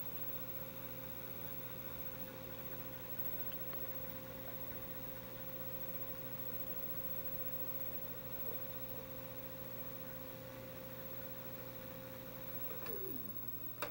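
Panasonic TV/VCR combo's tape transport winding a VHS cassette at speed, a steady motor hum with a faint tone. Near the end it winds down with a falling pitch and the mechanism clicks.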